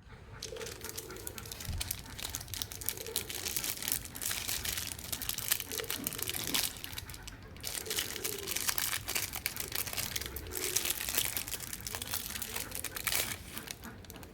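Soap packaging being crinkled and torn open by hand, a dense run of irregular crackles and rustles with no steady rhythm.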